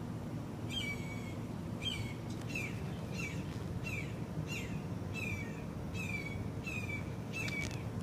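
A bird calling over and over, starting about a second in: a short note that drops in pitch and then holds, repeated about every two-thirds of a second, over a steady low background rumble.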